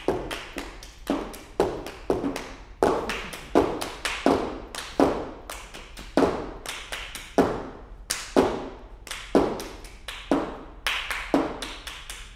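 One person clapping a steady beat, about three claps every two seconds, each clap ringing briefly in a reverberant hall.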